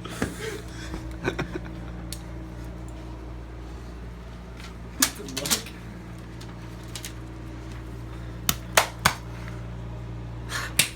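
Steady low electrical hum in a small room, broken by a handful of sharp clicks and knocks: two about half a second apart near the middle, then three in quick succession later and one more near the end.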